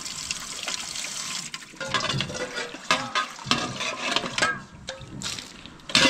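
Water running into the steel bowl of a livestock automatic water cup, filling through its float valve with a steady splashing trickle.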